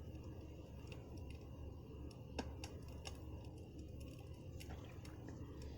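Campfire crackling faintly: scattered, irregular pops and snaps over a low, steady background noise, with one sharper snap about two and a half seconds in.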